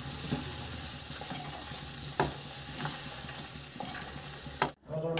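Spinach paste and onion-tomato masala sizzling in a kadhai while a metal spatula stirs and scrapes through it, with a few light knocks of the spatula against the pan. The sound drops out for a moment near the end.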